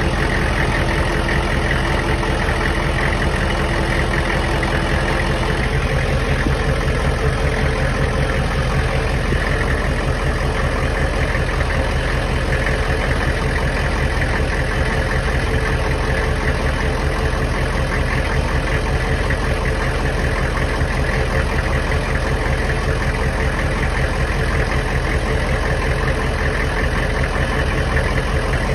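Hummer H1's 6.5-litre turbo-diesel V8 idling steadily, heard from underneath the truck.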